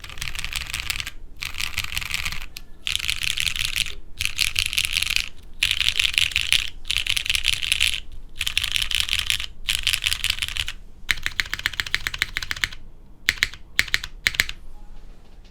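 Mechanical keyboard with Cherry MX Brown switches on a polypropylene plate, typed on quickly in bursts of clacking keystrokes with short pauses between them. Near the end come a few separate, louder key presses before the typing stops.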